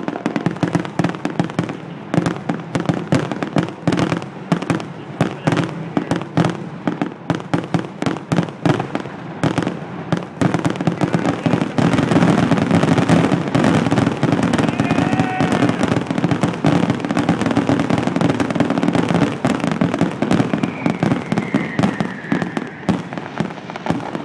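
Fireworks display going off in a dense, rapid barrage of bangs and crackles, getting louder and more continuous about halfway through. A couple of brief whistles sound over the barrage, one falling in pitch near the end.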